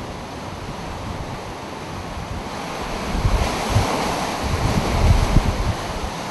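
Hurricane Wilma's winds blowing hard with driving rain, building into a stronger gust about three seconds in. In the second half the gust buffets the microphone with low rumbles.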